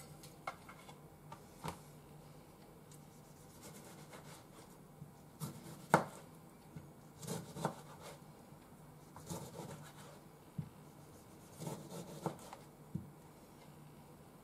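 Kitchen knife slicing a tomato, the blade knocking on the cutting board in scattered, irregular taps; the loudest comes about six seconds in.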